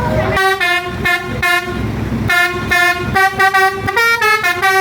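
Bus basuri telolet horn playing a tune: a run of short horn notes stepping from pitch to pitch, with longer held notes near the end.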